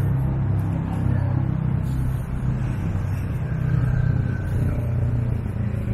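Steady low rumble of motor traffic on a city street.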